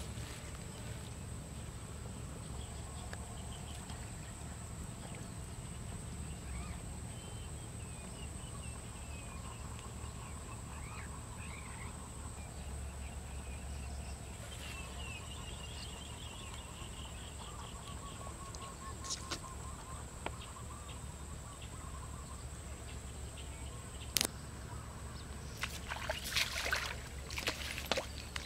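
Quiet pond-side ambience with faint bird chirps and a steady high-pitched tone; near the end, a run of splashes as a hooked catfish thrashes at the surface.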